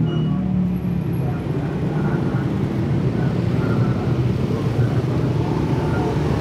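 Steady low rumble of a running motor vehicle engine and road noise.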